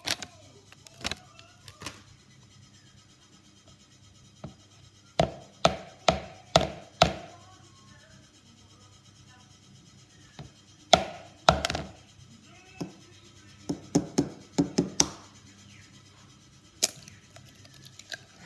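Sharp knocks and taps against a plastic mixing bowl while baking ingredients go in: a cluster of four, then a pair, then a quicker run of five, and a single knock near the end.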